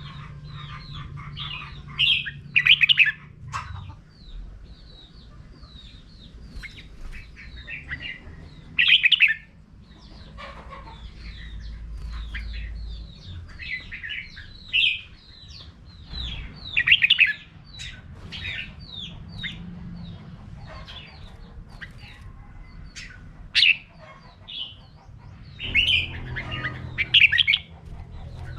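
Red-whiskered bulbuls singing: a steady run of short, bright chirps, with louder bursts of warbled song every few seconds.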